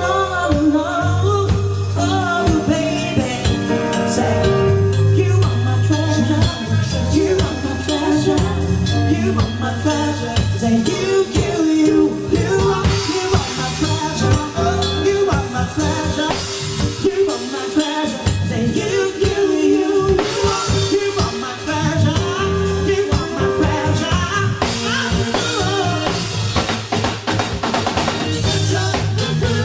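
A live band playing an upbeat dance number: a drum kit keeps a steady beat with snare and bass drum under sustained bass notes and keyboard.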